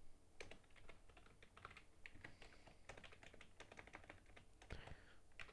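Faint typing on a computer keyboard: an irregular run of quick key clicks with short pauses between bursts.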